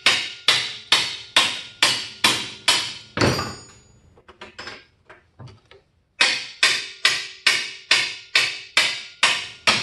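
Hammer blows on the end of a wrench, a little over two a second in a steady rhythm, the metal ringing after each. About three seconds in the blows stop for a few seconds with only a few light taps, then resume at the same pace. The wrench is being driven to turn a rusted nut so that it shears the cotter key stuck through it.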